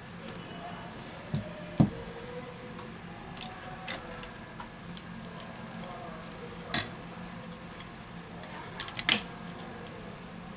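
Small tools and parts of an opened smartphone clicking and tapping against its metal frame and plastic during reassembly: a handful of sharp clicks, the loudest about two seconds in and a quick pair near the end, over a faint steady low hum.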